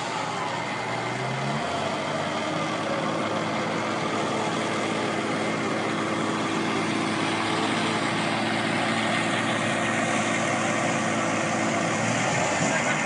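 Jeep engine working under load during a tow-strap recovery in snow. It revs up about two seconds in and holds at high revs with a steady rushing noise.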